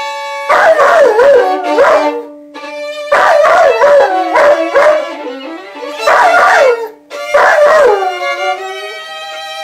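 A dog howling along with a violin: the howls come in about four bouts, wavering and sliding down in pitch, over the violin's held notes.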